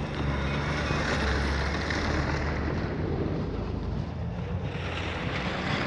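Wind buffeting the microphone: a steady low rumble with a hiss over it, heavier in the first half and easing later on.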